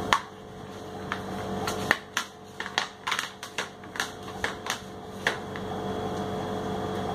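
A child's plastic toy tapping and rolling against a hard floor: an irregular run of light clicks and knocks, starting about two seconds in and ending about five seconds in, over a faint steady hum.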